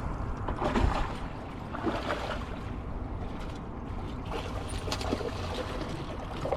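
Water splashing and lapping in shallows, with a few short splashes about one and two seconds in, over a low steady rumble of wind on the microphone.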